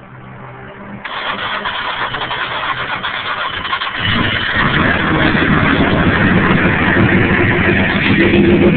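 BMW Motorsport P54B32 straight-six race engine, stroked to 3.4 litres, being started: it cranks from about a second in, catches about four seconds in, and then runs loud and steady.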